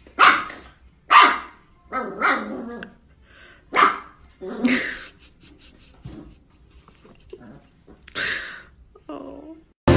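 Dog barking in single barks at irregular intervals, about eight in all.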